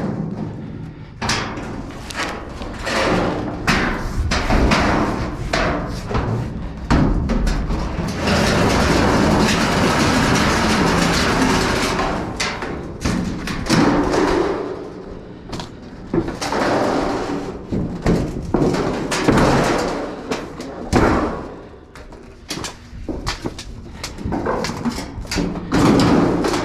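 Garage door panels being pulled and shifted around inside a steel dumpster: repeated bangs and thuds with stretches of scraping and rattling.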